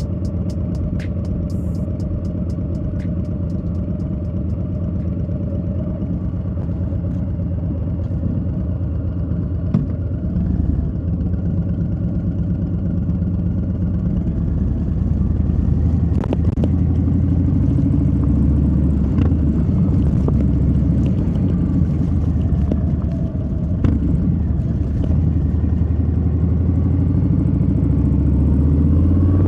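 Harley-Davidson Low Rider S's Milwaukee-Eight 117 V-twin running while the motorcycle is ridden, a steady low rumble that grows louder about halfway through. A few sharp knocks stand out above it.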